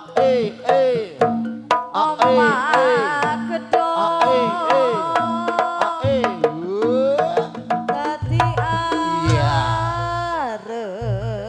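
Live jaranan accompaniment: repeated hand-drum strokes and percussion under a melody line that swoops and bends in pitch, with deep low notes coming in about two-thirds of the way through.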